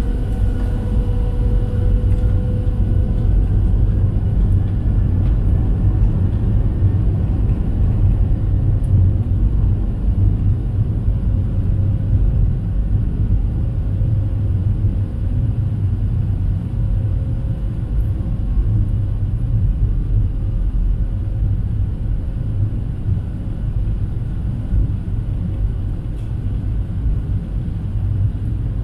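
Steady low cabin rumble inside a Boeing 737-700 taxiing at low power: the CFM56-7B engines running and the wheels rolling over the taxiway. A faint steady hum fades out in the first few seconds.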